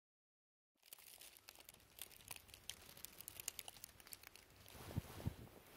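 Faint crackling and rustling of dry leaf litter, starting about a second in, with two low thumps near the end.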